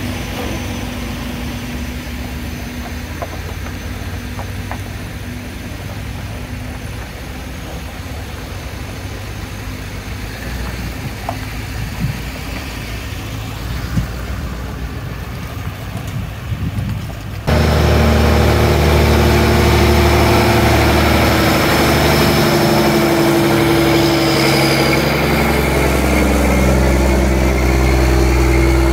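Diesel truck engines idling with a steady low hum. About two-thirds of the way in, the sound cuts suddenly to a much louder big-rig diesel engine running steadily close by.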